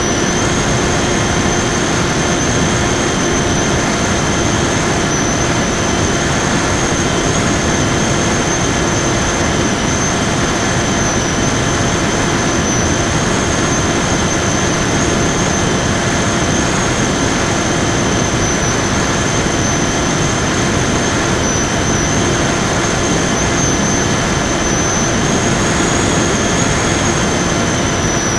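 Onboard sound of an FPV Raptor RC plane's electric motor and propeller running steadily in cruise: a high whine over a constant rush of air. Near the end the whine rises slightly, then falls away.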